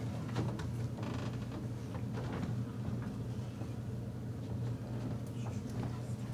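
Quiet room tone with a steady low hum, broken by a few faint knocks and rustles.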